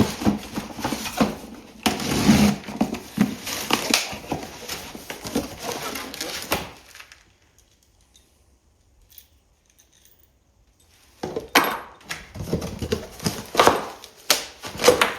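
Rustling packaging and clattering small parts as an e-bike's accessory box is unpacked by hand, stopping for a few seconds of near silence midway, then resuming with sharp clicks and rustles.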